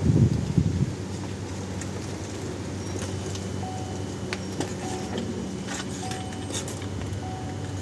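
A short beep repeating about once a second starts about halfway in: the car's warning chime, sounding because the door is open with the key on. Under it a steady low hum, a low rumble in the first second, and scattered light clicks and taps of parts being handled.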